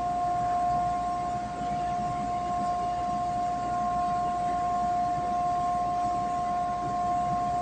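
A steady whining tone held at one unchanging pitch, with a fainter, higher tone above it, over a background hiss.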